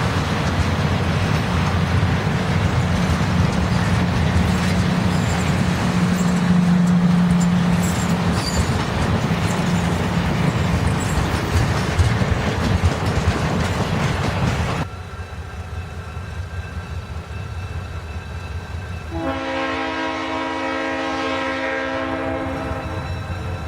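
A train running by, loud steady rail noise with a low hum, which cuts off abruptly about 15 seconds in. A few seconds later a diesel locomotive's air horn sounds one long chord of several notes for about four seconds.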